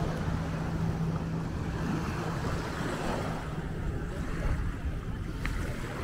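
Surf washing on the shore with wind on the microphone, and a low steady hum that fades out about halfway through.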